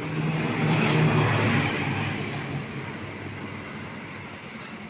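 A motor vehicle passing close by: engine and road noise swell to their loudest about a second in, then slowly fade away.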